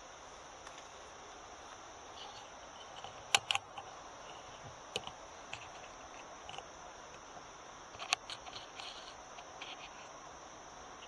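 Steady high-pitched chorus of night insects, with a few sharp clicks scattered through it, the loudest about three seconds in and another about eight seconds in.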